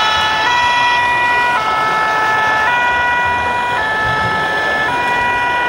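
Scale RC model fire truck's sound unit playing a German two-tone fire-engine siren, stepping between a high and a low note about once a second.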